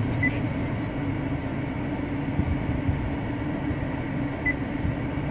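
Steady low hum inside a parked Suzuki XL7's cabin with the engine idling and air conditioning running. There is a short high beep just after the start and another near the end, likely the head unit's touchscreen tap tones.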